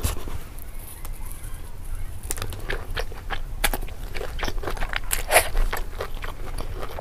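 Close-miked eating sounds: chewing a mouthful of braised pork, then from about two seconds in a run of wet, sticky clicks and smacks as fingers pull the meat apart on the plate.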